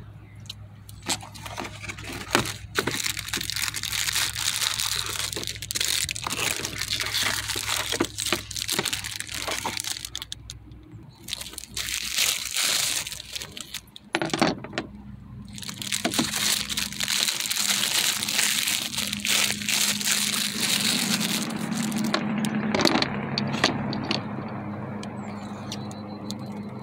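Clear plastic wrap crinkling and rustling as it is pulled off a pair of new trunk gas struts, in long stretches with short pauses, with scattered clicks as the struts are handled. A steady low hum runs underneath.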